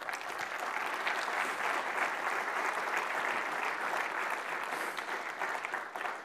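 Audience applauding, starting all at once and beginning to die away near the end.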